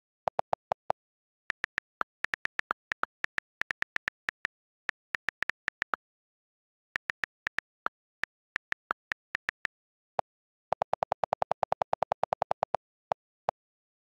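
iPad on-screen keyboard click sounds, recorded straight from the device with dead silence between them. A few delete-key clicks at the start, then several seconds of irregular letter-key taps as a sentence is typed, then a fast run of delete-key clicks near the end as the backspace key is held to clear the text.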